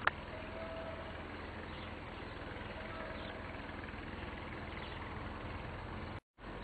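Steady outdoor background noise with a low rumble underneath, a click at the very start, and the sound cutting out completely for a moment near the end.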